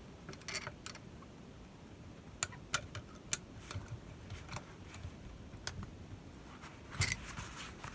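Faint, sparse metallic clicks and taps from hand work on a small cast bench vise while its adjustment is tightened to take out the jaw's play: about half a dozen sharp ticks spread over several seconds, with a brief louder noise near the end.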